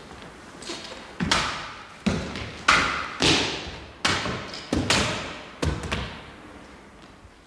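A Japanese sword cutting through upright practice targets, with severed pieces thudding onto a wooden floor: about nine sharp strikes in quick succession, each ringing out in the hall before the next.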